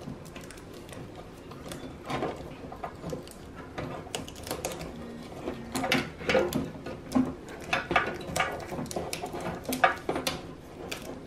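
Clear cellotape crinkling and crackling in irregular small clicks as it is wrapped by hand around a bundle of front-panel connector plugs and their wires.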